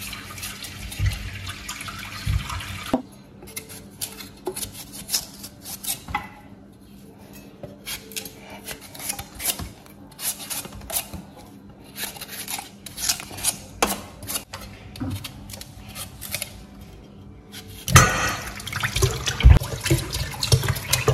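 Kitchen knife scraping and slicing the peel off raw sweet potatoes, a long run of short clicks and scrapes as the blade works and peelings drop onto a metal tray. Near the end water starts running into a metal basin and splashes over the peeled potatoes as they are washed.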